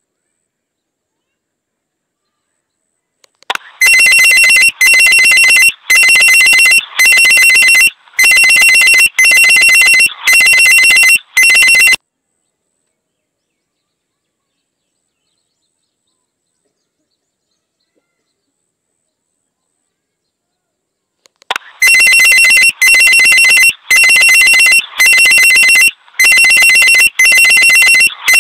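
Electronic ringing tone, like a phone or alarm ringing, in rings of under a second at about one a second. It starts about three seconds in, goes eight times, stops for about ten seconds, and starts again near the end.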